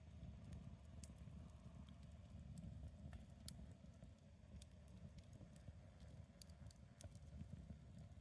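Wood campfire crackling faintly, with scattered sharp pops over a low steady rumble.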